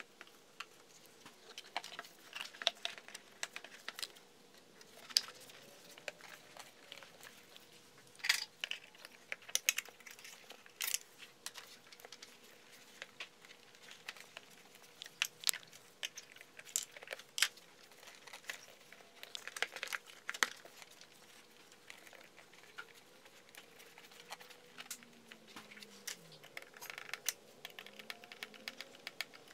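Plastic engine-bay parts and a rubber air intake boot being handled and fitted by gloved hands: irregular clicks, knocks and plastic rustling.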